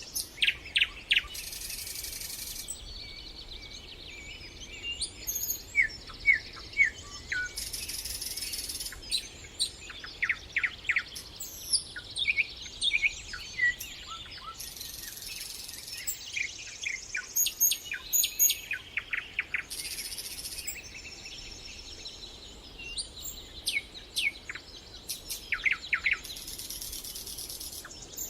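Several songbirds chirping and singing in short, repeated calls and trills throughout. Every several seconds a high, hissing buzz sounds for a second or two, then stops.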